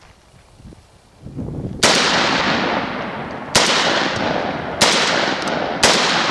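Four shots from a LionX6 semi-automatic 12-gauge tactical shotgun, firing a staggered mix of 3-inch magnum and 2 3/4-inch shells. The shots come at about a second and a half, then a second and a quarter, then a second apart, each followed by a long echoing tail. The gun is cycling each load reliably.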